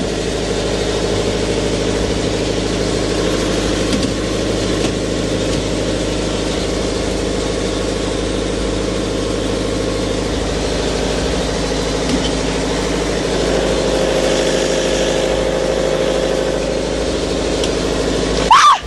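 Kipor KDE16SSP diesel standby generator running steadily in its soundproofed cabinet during a test run, an even engine hum. Near the end a short, sharp startled cry cuts in over it.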